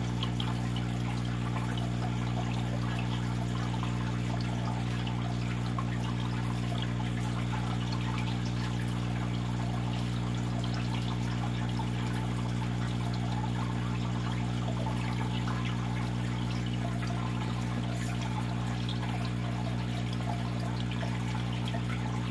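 Aquarium pump or filter running with a steady low hum, with water pouring and trickling into the tank.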